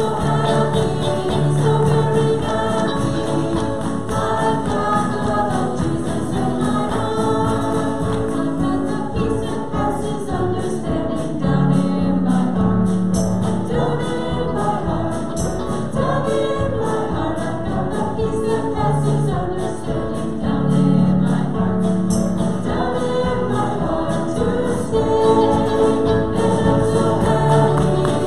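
Congregation singing a worship song together with instrumental accompaniment.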